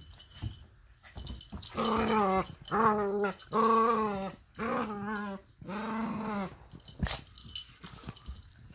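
A dog growling in rough play, five drawn-out wavering growls one after another, amid scuffling of two dogs wrestling. A sharp knock comes near the end.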